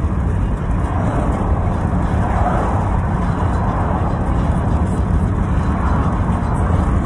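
Steady rumble of road and engine noise heard inside the cabin of a moving car.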